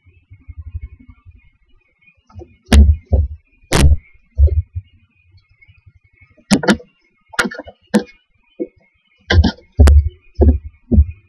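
Irregular knocks and thumps, about a dozen, as barn owl owlets shift and struggle against the floor and walls of a wooden nest box close to the microphone.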